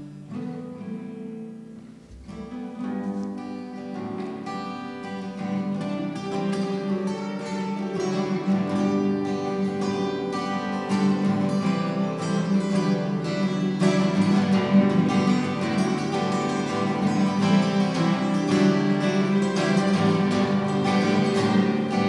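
Acoustic guitar music of plucked notes, swelling in level from about two seconds in and then holding steady.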